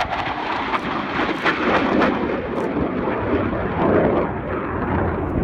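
Panavia Tornado jet in flight: a loud, steady rush of jet noise from its RB199 turbofan engines.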